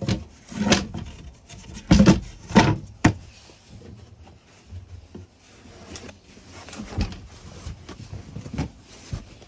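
Knocks, thumps and rubbing as the wooden dinette bench lid over the toilet compartment and its seat cushion are handled and set back in place, with the loudest thumps about two to three seconds in and softer ones later.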